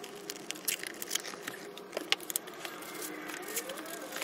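A cardboard laptop box being opened and its packing handled: a run of light clicks, scrapes and rustles from cardboard, paper and a foam insert, over a faint steady hum.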